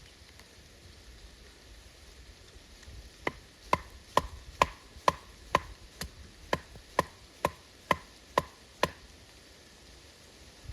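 Thirteen sharp blows of a tool striking wood, evenly paced at a little over two a second, each with a brief ring. They start about three seconds in and stop near the nine-second mark.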